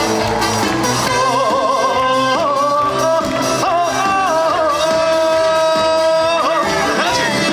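Live trot song: a male singer's voice with a wavering, ornamented melody that holds one long note near the middle, over an amplified band backing with a steady beat.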